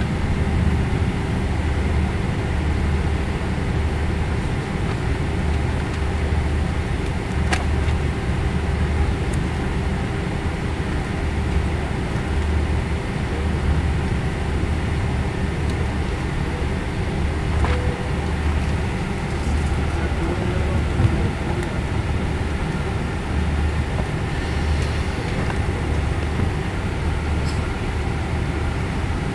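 Cabin noise of a Boeing 777-300ER taxiing on the ground, heard from inside the passenger cabin: a steady low rumble from its GE90 engines at taxi power with a steady hum over it, and two faint clicks.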